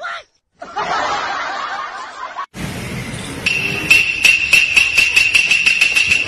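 A short noisy stretch, then from about two and a half seconds in, a music track with a steady jingling beat of about three strikes a second over a held high tone.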